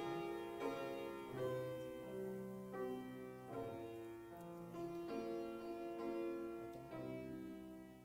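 Slow instrumental music: struck or plucked notes ringing out in changing chords, about one change a second.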